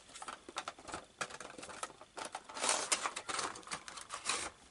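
A cardboard Funko Pop box being opened and its clear plastic insert slid out: a run of small clicks and crinkles of card and plastic, with a longer rustle about two and a half seconds in.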